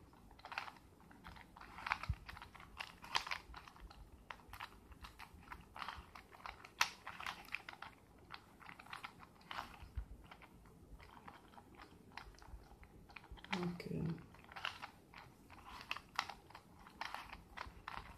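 Rubik's cube layers being turned by hand: a run of quick plastic clicks and clacks, several a second, with a brief low hum about fourteen seconds in.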